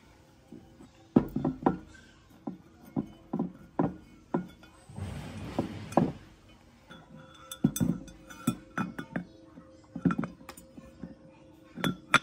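Metal parts and hand tools clinking and knocking in a string of sharp, irregular taps, with a brief hiss about five seconds in.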